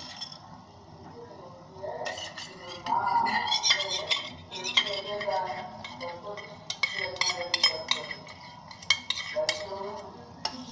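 A metal spoon stirring flour paste into milk in a steel saucepan, clinking and scraping against the pot, starting about two seconds in.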